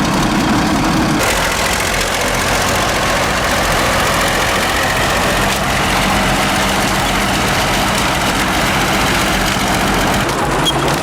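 Heavy diesel engine of earth-moving machinery running steadily, with the sound changing abruptly about a second in.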